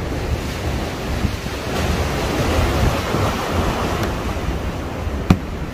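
Wind buffeting the microphone outdoors by the water, a steady rumbling rush that swells in the middle, with a single sharp click near the end.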